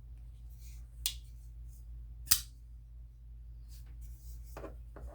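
Kizer Lätt Vind Mini folding knife clicking twice, about a second apart, the second click louder: the blade being flicked open and locking on its replaced detent ball, with a few fainter ticks.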